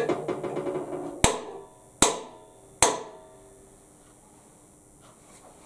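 Three sharp hammer blows about 0.8 s apart on a steel driving tube, each followed by a short metallic ring. The blows drive a heated bearing inner ring onto the flywheel shaft of a Reiter KB1 air power hammer.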